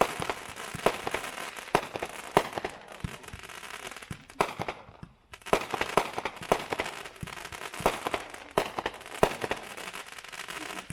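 World Class Angry Leprechaun 500-gram firework cakes going off: rapid sharp reports and dense crackling, with a brief lull about five seconds in before the shots resume.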